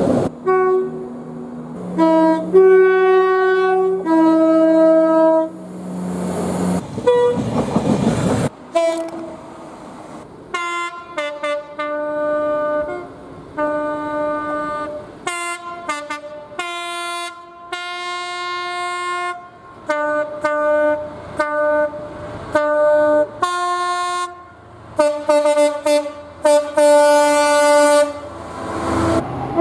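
Train horns sounding one after another, short toots and longer blasts, each several notes at once, with abrupt cuts between them. A rush of passing-train noise comes in about a quarter of the way through and again near the end.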